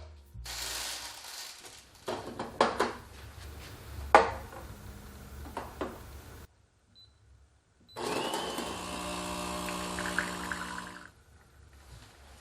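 Small electric motor of a kitchen appliance running steadily for about three seconds and cutting off abruptly, after a series of knocks and clicks from handling kitchenware.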